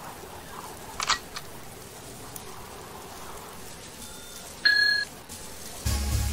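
Subscribe-button animation sound effects: a mouse click about a second in, then a short two-tone notification beep a little over four and a half seconds in. Music with a bass line starts just before the end.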